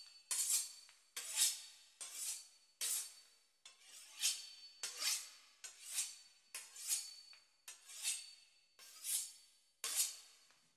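A knife sawing back and forth through a crisp pastry crust: an even run of scraping, rasping strokes, about one and a half a second.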